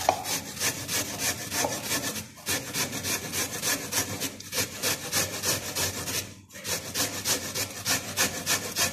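Raw sweet potato being grated by hand on a stainless-steel cone grater: a quick, even rasping scrape of about four strokes a second, broken by three short pauses.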